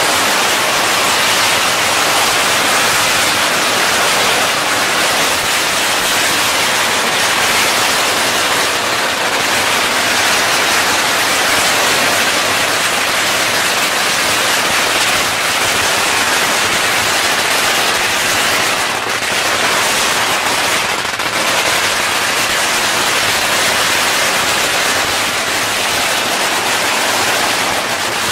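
Long strings of red paper firecrackers going off in one continuous rapid crackle, the bangs too close together to count, loud and unbroken throughout.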